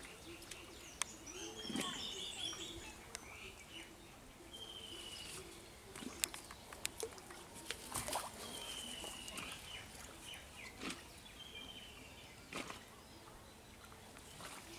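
Small birds calling in short, rapid trilled phrases every few seconds, with a few sharp knocks in between.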